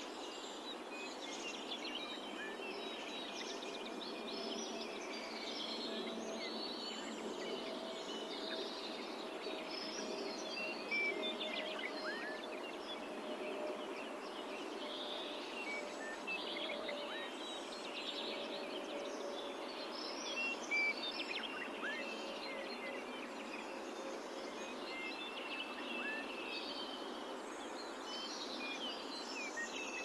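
Outdoor ambience of several small birds chirping and calling in short, quick notes, over a faint steady hum.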